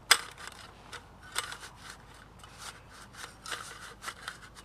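Folding aluminium camp table being set up: sharp metallic clicks and scrapes as its slatted top and folding legs are handled. The loudest click comes right at the start, followed by scattered lighter clicks and a cluster near the end.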